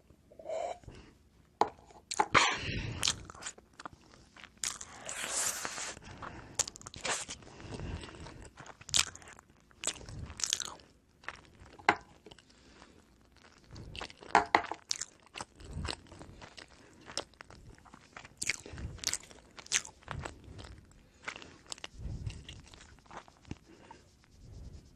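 Someone biting and chewing oven-baked pizza bread up close, with irregular crunchy bites and chewing sounds.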